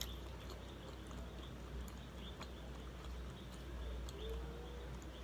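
Quiet eating sounds: faint chewing with scattered soft mouth clicks, over a low steady hum. A brief faint hum-like tone comes about four seconds in.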